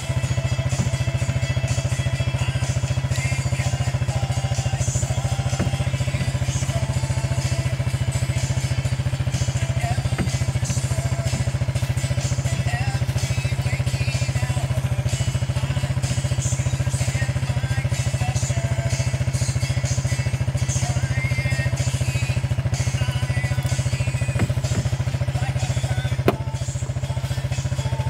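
A small engine running steadily, a low even drone, with a sharp click about 26 seconds in after which it runs slightly quieter.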